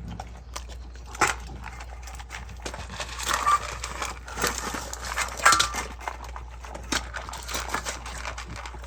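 Two dogs eating dry kibble from bowls: a run of irregular crunches and clicks as they chew and nose the food, with a few louder knocks.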